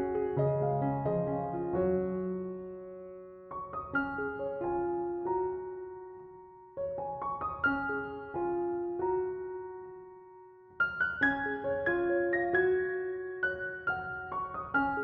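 Background piano music: gentle phrases of struck notes that fade away and start again about every three to four seconds.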